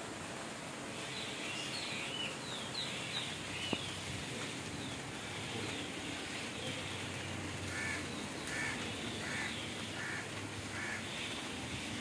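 Wind blowing steadily through leaves, with birds calling over it: quick chirps in the first few seconds and a run of five short, evenly spaced calls in the second half.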